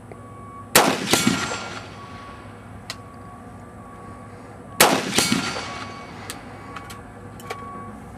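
Two rifle shots from an AR-15/M16-type rifle, about four seconds apart, each a sharp crack followed by an echo that dies away over about a second. This is slow aimed fire to confirm the sight's 100-yard zero.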